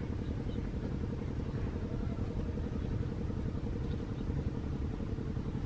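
A motor vehicle's engine running steadily, with a dense low rumble.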